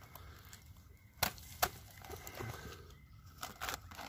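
Small knife cutting into the brittle brood comb of a native stingless bee nest: faint crunching and scraping, with two sharp clicks about a second and a half in and a few smaller ones near the end.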